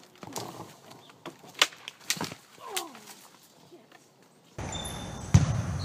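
A person falling out of a pine tree: a few sharp cracks between one and a half and two seconds in, then a short falling cry. Near the end the sound cuts to a large echoing hall with a heavy thud.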